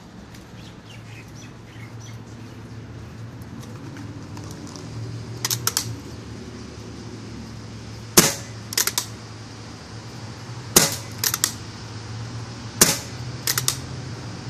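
Paintball marker firing three single shots about two and a half seconds apart, each a sharp crack followed about half a second later by a fainter quick double click. A weaker cluster of three quick clicks comes about five seconds in.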